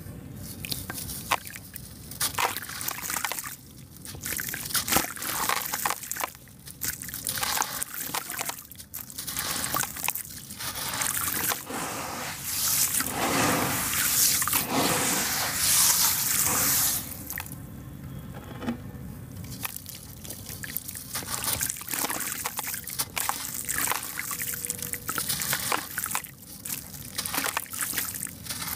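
Hands crumbling wet sand-and-cement chunks in a basin of water: irregular gritty crackles with dripping, trickling and sloshing water. A louder, denser stretch of sloshing and crumbling comes about halfway through.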